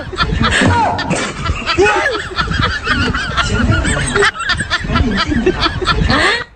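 Honking, cackling laughter from a comedy sound effect, repeated over and over.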